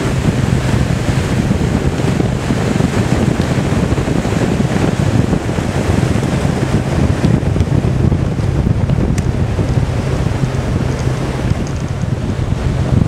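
Steady wind buffeting the microphone over a low, even boat-motor drone and rushing water, heard from aboard a boat on the lake.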